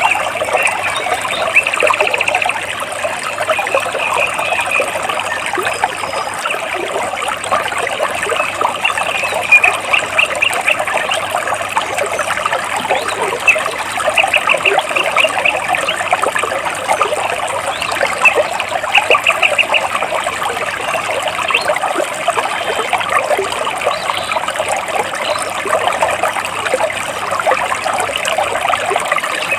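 Water trickling and splashing between rocks in a steady, dense babble. A few brief runs of rapid repeated high chirps from birds stand out now and then.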